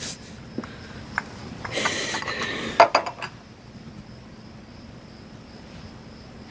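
China teacup and saucer clinking: a few light clinks, a short rustle about two seconds in, then a quick cluster of sharp clinks just before the three-second mark.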